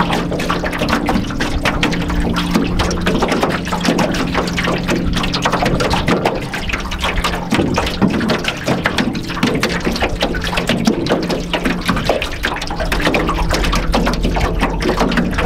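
Small waves lapping and slapping irregularly against the hull of an aluminum canoe under way, with steady low tones of ambient background music underneath.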